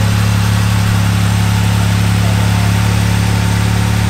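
Freshly turbocharged Jeep Wrangler JLU's 3.6-litre V6 idling steadily on its first start after the turbo install and a new tune.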